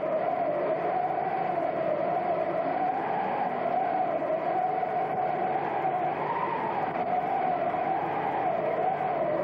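A steady droning noise with a strong tone that wavers slowly up and down in pitch.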